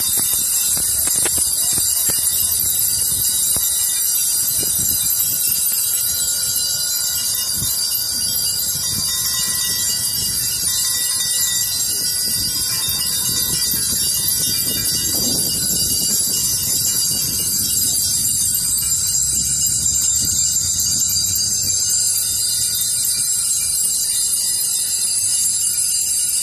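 Many bells ringing together without a break, a dense, steady wash of high ringing tones.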